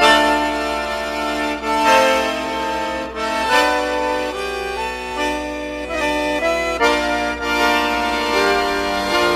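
Piano accordion playing an instrumental tune in full chords, the notes changing every half second to a second over a steady low bass.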